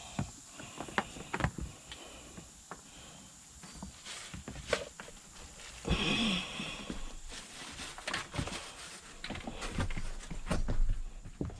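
Irregular clicks, knocks and rustling of handling work, with a longer scraping rustle about six seconds in.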